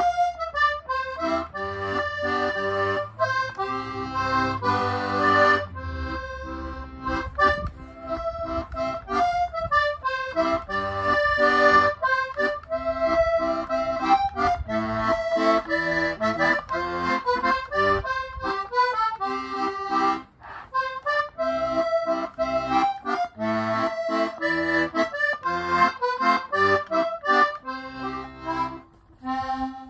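Button accordion playing a lively tune, a melody over pumped bass chords, with a brief break about two-thirds of the way through, stopping just before the end.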